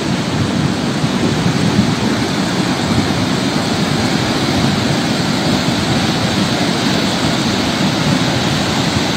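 Muddy floodwater of a swollen river rushing past, a steady, even noise.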